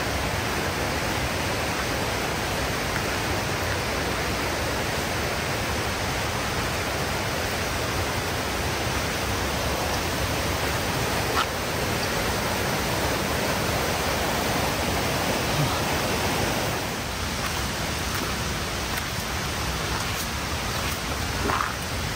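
Steady rush of falling water, even and unbroken, easing slightly about three-quarters of the way through.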